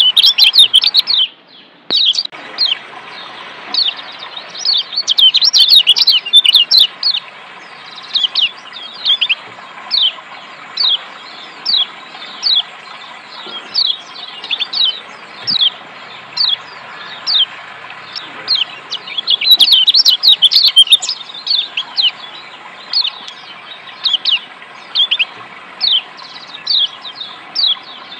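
Yellow white-eye (kecial kuning) giving short, falling 'ciak' chirps about once a second, with two stretches of rapid chattering, about five and twenty seconds in. Under it runs a steady sound of flowing water, which cuts out briefly about a second in.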